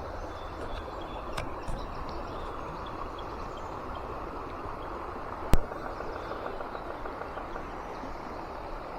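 Steady outdoor rushing noise, such as a stream's flow or wind, with faint bird chirps. A single sharp click about five and a half seconds in stands out as the loudest sound.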